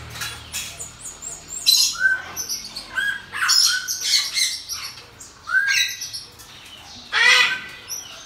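Pygmy marmosets giving short, high-pitched chirps and squeaks in quick clusters, with a louder call near the end.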